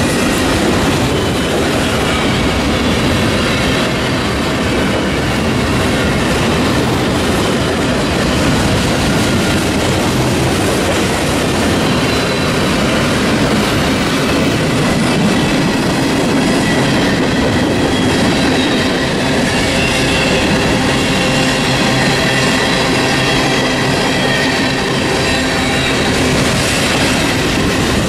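Union Pacific manifest freight train's cars, boxcars and lumber-loaded centerbeam flatcars, rolling past at track side: a loud, continuous rumble and clatter of steel wheels on the rails. Thin, high wheel squeal comes through over it in the second half.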